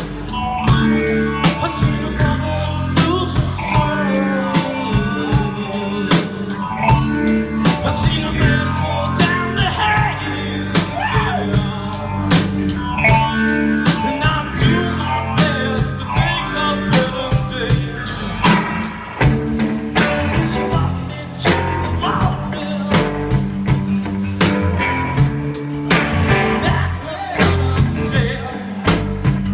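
A live rock-blues band playing: electric guitar, bass and a drum kit keeping a steady beat, with a man singing into a microphone.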